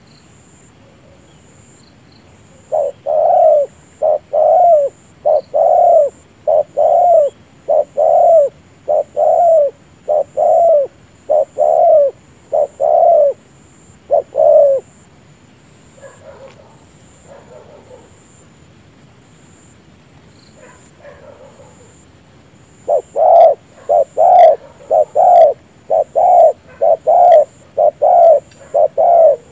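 Spotted dove bow-cooing: a run of short, low coos under a second apart. The run starts a few seconds in and breaks off halfway, faint calls follow, and a second run begins near the end.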